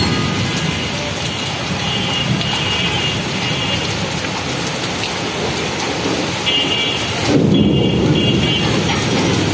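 Heavy rain pouring steadily during a cyclone storm, with a deeper rumble swelling about seven and a half seconds in.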